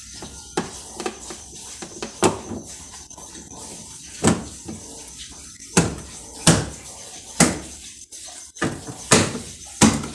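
Hard objects knocking and clattering, about eight sharp knocks spread unevenly over ten seconds.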